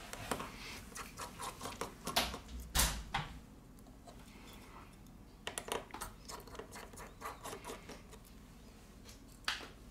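Small clicks, scrapes and taps of a precision screwdriver and fingers working the tiny screws of a smartphone's internal metal bracket. A few sharper taps come about two and three seconds in and again near the end.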